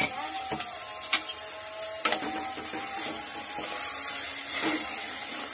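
Ground masala paste sizzling in a hot clay pot as a steel spoon stirs it, with a few sharp knocks of the spoon against the pot about a second and two seconds in.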